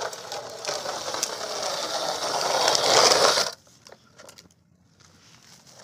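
Plastic toy loader's wheels rolling and rattling over rough concrete as it is pushed along, growing louder and then cutting off abruptly about three and a half seconds in. Faint clicks of the plastic bucket among feed pellets follow.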